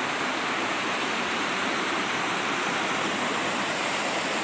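Waterfall pouring steadily over a rock ledge and splashing onto boulders below: a continuous rush of falling water.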